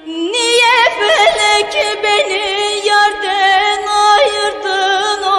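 Turkish folk song music: a single ornamented melody line with vibrato, quick trills and slides. A new phrase begins shortly after the start with an upward slide.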